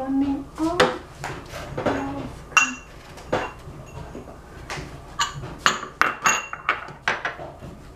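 Dishes clinking: a utensil knocking against small pots, about ten sharp clinks, some with a short ring. They are spaced out at first and come closer together in the second half.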